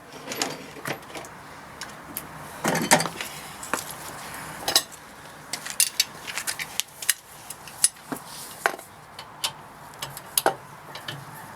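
Hand tools working the rear brake caliper bolts: irregular sharp metallic clicks and clinks, a few louder knocks among them, some with a short ring.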